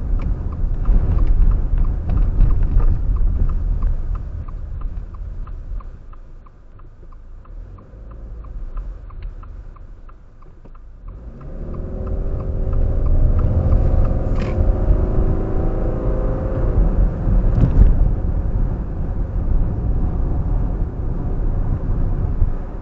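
A car driving, with heavy low road and wind rumble. The rumble eases off about a quarter of the way in while a light, steady ticking goes on. From about halfway the engine note climbs in pitch as the car speeds up, and the rumble grows loud again.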